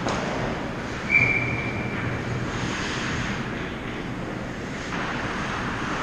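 A referee's whistle blown once about a second in, a single high blast that tails off, stopping play; it comes over the steady noise of the ice rink, just after a sharp knock.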